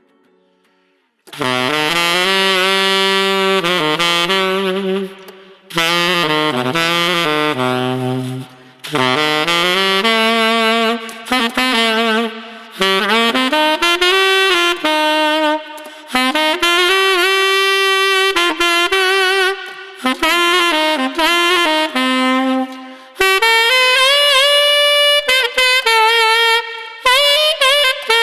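Unaccompanied tenor saxophone playing a melodic line in phrases with short breaks between them, some notes bending in pitch, starting about a second in. It is recorded through a United UT Vintage87 large-diaphragm condenser microphone.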